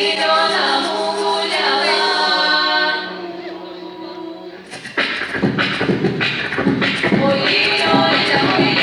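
Vocal ensemble singing a Russian folk song a cappella in long, held notes over a low sustained note. About five seconds in, the singing turns fast and lively, with loud rhythmic percussive beats under the voices.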